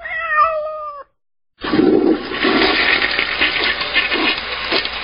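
A cat meows once, about a second long and falling slightly in pitch. After a brief silence a toilet flushes with loud rushing water.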